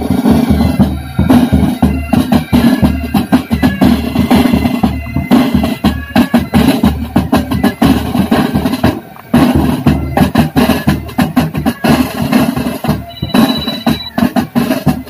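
Military pipe band playing on the march: bagpipes over a steady beat of snare, tenor and bass drums. The drumming thins briefly about nine seconds in, then picks up again.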